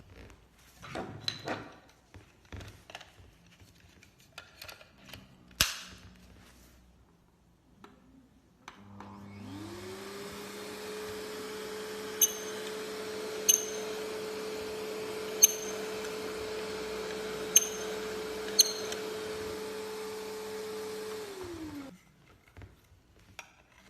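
Pet-hair grooming vacuum switched on about nine seconds in: the motor spins up to a steady hum with airflow hiss, runs for about twelve seconds with five sharp clicks over it, then is switched off and winds down. Before it starts, a few knocks and clicks of the attachments being handled.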